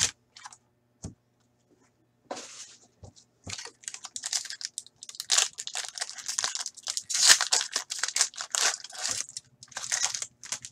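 Foil wrapper of a hockey card pack being torn and crinkled by hand while cards are handled. After a couple of short clicks in the first second and a brief lull, the rustling starts about two seconds in and is thickest in the middle.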